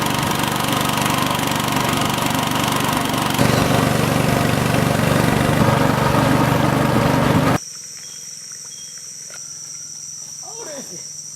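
Small boat engine running steadily and loud, cutting off abruptly about three-quarters of the way through. After it, a quieter scene with a steady high-pitched insect drone.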